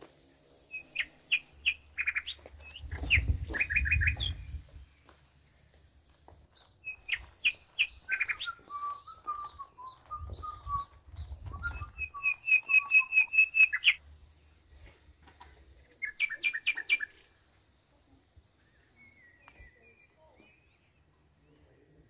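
Small songbirds singing: bursts of quick, high chirps and trills with pauses between phrases, one run of notes stepping down in pitch in the middle, and a few low rumbles underneath.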